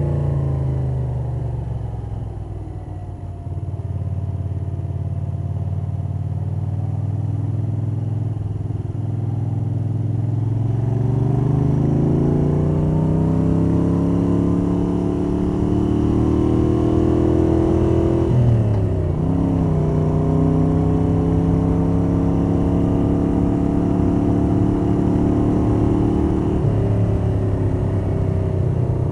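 The air-cooled V-twin of a 1982 Moto Guzzi 850 Le Mans III, fitted with Lafranconi Riservato Competizioni exhausts and K&N cone filters, heard underway from a cloth-wrapped microphone in the rider's jacket pocket, with wind noise and valvetrain sound. The revs fall off at first and hold low and steady for several seconds. The engine then pulls up through the revs for several seconds before a sudden drop about two-thirds of the way through, and runs steadily at cruise from there on.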